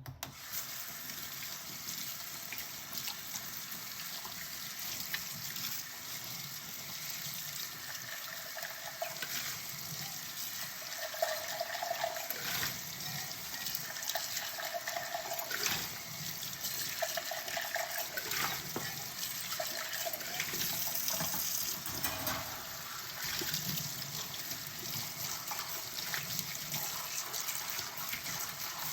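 Kitchen tap running into a sink during hand dishwashing, with dishes clinking against each other and the sink now and then. The water comes on suddenly at the start.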